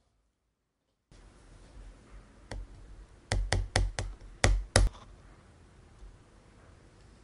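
Metal spoon tapping and cracking the torched caramelized sugar crust on a crème brûlée in a ceramic ramekin. One light tap, then about six sharp taps in quick succession over a second and a half.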